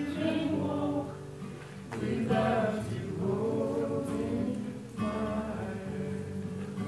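A woman singing a gospel song with acoustic guitar accompaniment.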